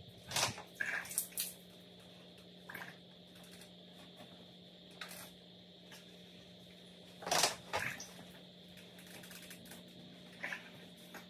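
Scattered clicks, taps and rustles from hands working on the casing of a ductless mini-split indoor unit as it is taken apart, the loudest a short cluster about seven seconds in. A faint steady hum runs underneath.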